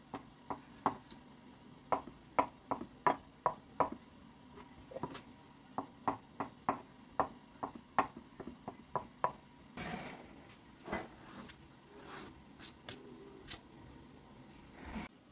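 Knife chopping hard-boiled eggs on a plastic cutting board: a quick, irregular run of sharp taps, two or three a second, for about nine seconds. Then softer scraping and a few knocks as the chopped egg is pushed off the board into a glass bowl, with a thump near the end.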